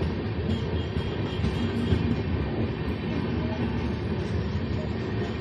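Indian Railways passenger coaches rolling past close by: a steady rumble of wheels on the rails.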